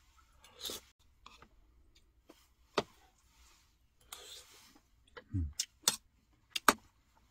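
Eating at a table: a metal spoon clicking against ceramic bowls, a scattering of sharp clicks with a few soft rustles between and one low thud about halfway through.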